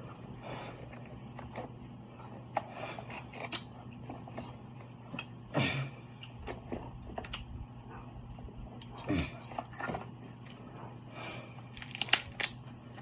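Close-miked eating of a seafood boil: chewing and mouth sounds with irregular cracks, crunches and crinkles from handling the seafood, and a few louder sharp clicks near the end, over a low steady hum.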